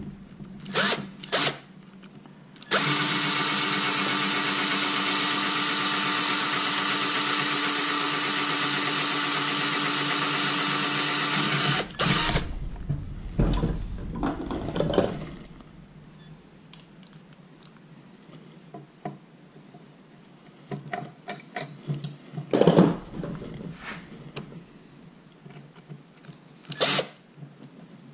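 Cordless drill running at a steady speed for about nine seconds as it bores a hole through the hydrofoil plate and the outboard's cavitation plate, stopping abruptly. Scattered clicks and knocks follow, with one sharper knock late on.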